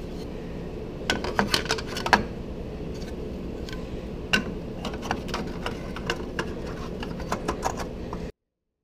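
Irregular light metal clicks and clinks as the sheet-metal lower heat shield and its 11 mm nut are handled and fitted onto a stud, over a steady low hum. The sound cuts off suddenly near the end.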